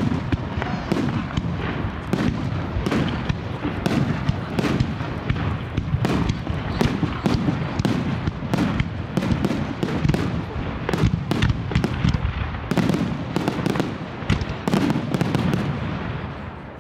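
Professional fireworks display: aerial shells bursting in quick succession, many sharp bangs over a continuous low rumble, tailing off near the end.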